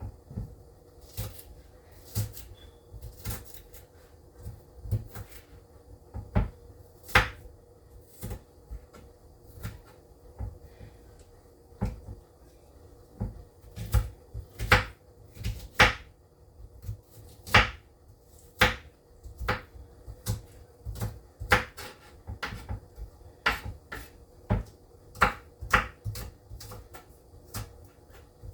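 Knife chopping seasoning vegetables on a cutting board: irregular sharp knocks with a low thump, one or two a second, growing more frequent and louder in the second half. A faint steady hum runs underneath.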